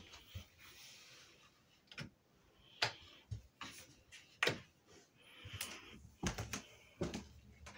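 Footsteps climbing carpeted stairs: irregular soft thuds and sharper knocks, about one a second, the sharpest about three and four and a half seconds in.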